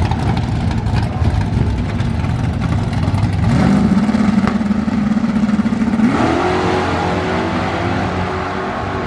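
A Mopar muscle car's V8 idles with a rough rumble at the drag-strip starting line. About three and a half seconds in, the revs come up and are held steady. About six seconds in the car launches, and the engine pitch rises as it accelerates away down the track.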